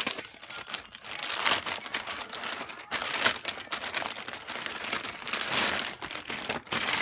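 Packaging being handled and crinkled: continuous rustling with many small crackles, in a few louder swells.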